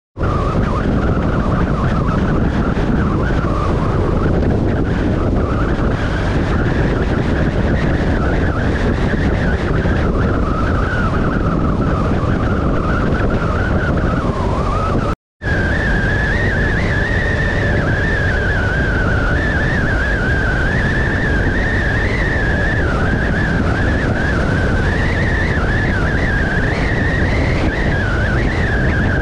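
Motorcycle on the move, recorded from on board: steady engine and wind noise with a high whine that wavers in pitch. The sound drops out for a moment about halfway through, then carries on.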